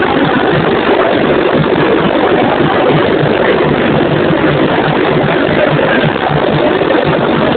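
Samba school drum section (bateria) playing a loud, dense samba rhythm: low drum beats at a steady pulse under a continuous rattle of snare drums.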